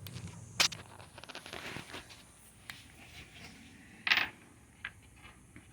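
Handling noises of tools and parts being moved: a sharp click about half a second in, a run of faint ticks, then a short scrape a little after four seconds and one more small click.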